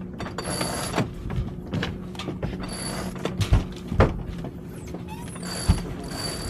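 Sailboat sheet winch ratcheting in three short runs as the sail is trimmed, with a few sharp knocks of gear and hands on the deck around the middle.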